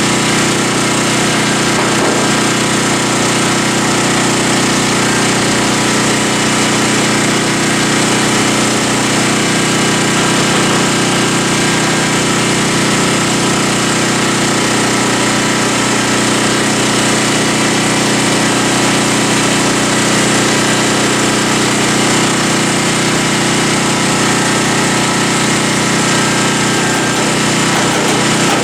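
A power tool running steadily without a break, a continuous mechanical drone with several steady tones.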